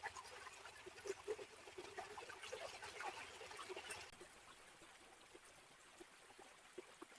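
Small stream trickling faintly, with many little water plops; the brighter splashing eases off about four seconds in.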